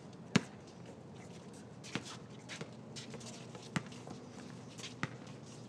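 A basketball bouncing on a hard surface: about five separate, irregularly spaced bounces, the loudest about half a second in.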